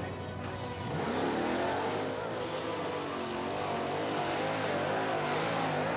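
Engines of two monster trucks, the blue Ford Bigfoot and a yellow truck, revving hard in a side-by-side race up a dirt hill. The pitch climbs about a second in, then wavers up and down.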